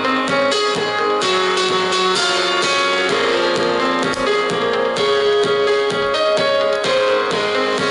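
Instrumental music with held keyboard notes, playing through a pair of small C3 Tech SP-301BK 2.0 USB desktop speakers (3 W RMS), with little deep bass.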